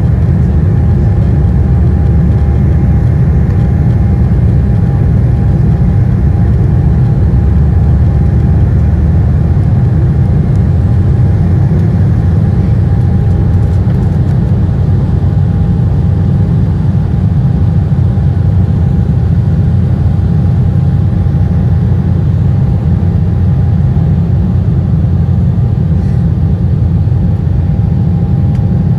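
Cabin noise inside an Embraer 175 during take-off: its GE CF34-8E turbofans at take-off thrust give a loud, steady low rumble with a faint steady whine above it, through the take-off roll and into the climb.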